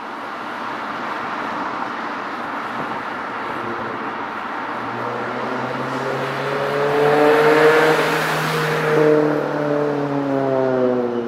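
Honda Civic Type R (FD2) K20A inline-four engine and exhaust running under acceleration over a rushing noise. The engine note rises, breaks about three-quarters of the way through, and falls toward the end.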